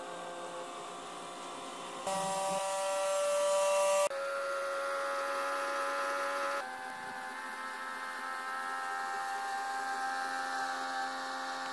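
Motorcycle engine sound, a steady buzzing run. From about two seconds in it gets louder and climbs slightly in pitch like a rev, drops back suddenly about two seconds later, and then settles into a steadier, lower hum.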